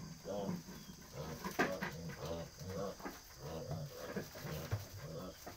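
Newborn Duroc piglets grunting: a steady run of short grunts that rise and fall in pitch, about two a second.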